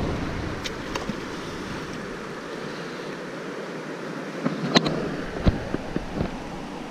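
Steady rush of flowing river water and wind on the microphone. A few short, sharp clicks and knocks come about five seconds in.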